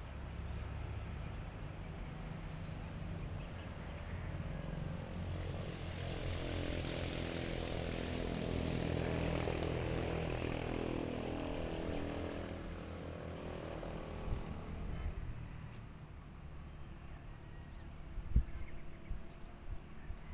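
A distant aircraft engine droning past, growing louder for several seconds and then fading, over a low wind rumble on the microphone. A single sharp knock near the end.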